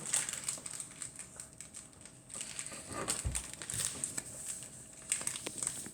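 Light irregular clicks, scrapes and rustles of a spoon and plastic kit parts being handled while baking soda is scooped, with one soft thump a little past the middle.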